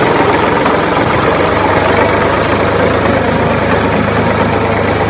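Steady engine idling, a tractor engine sound effect laid over a toy tractor, which has no motor of its own.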